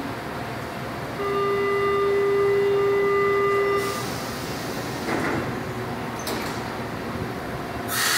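São Paulo Metro Line 1 train's door-closing warning: a steady electronic tone for about two and a half seconds, then the sliding doors rumble shut and latch with a click. A sudden loud hiss of air starts near the end.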